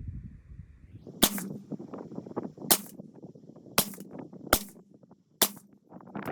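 Five suppressed 5.56 rifle shots from a 12.5-inch short-barrelled AR fitted with a Surefire RC2 suppressor, fired in quick succession about a second apart as a rushed five-shot group, with light handling noise between shots.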